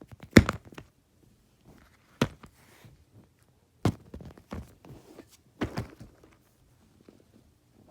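Fidget toys being handled: four sharp knocks or clacks, roughly every two seconds, each followed by a few small clicks and rattles; quiet in the last two seconds.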